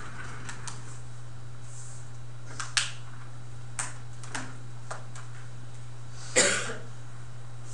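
Quiet classroom room tone: a steady low hum with a few scattered small clicks and taps, and one brief louder noise about six and a half seconds in.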